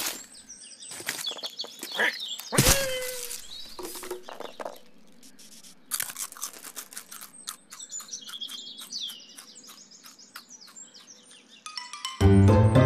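Cartoon soundtrack of garden birds chirping over many short clicks and scratches, with one loud sudden sound about two and a half seconds in. Music starts near the end.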